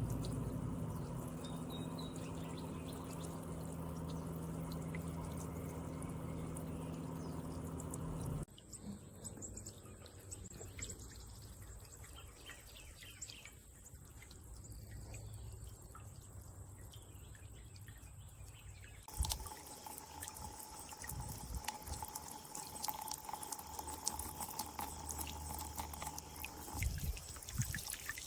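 Small floating solar fountain pump spraying water into a bird bath: a light splash with water dripping and trickling back into the basin. The sound changes abruptly twice, about 8 and 19 seconds in. A steady low hum runs under the water in the first part.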